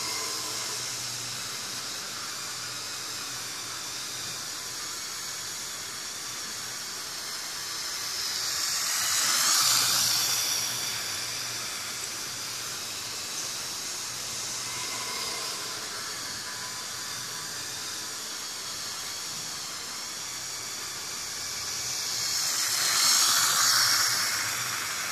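H0-scale model train, a Piko ST44 diesel locomotive hauling coal wagons, running on sectional track with a steady whirring hiss of motor and wheels. The sound swells louder twice as the train passes close by, about nine seconds in and again near the end.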